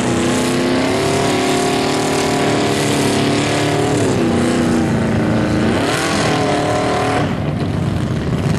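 A mega mud truck's engine working in a mud pit, its revs dropping and climbing again several times.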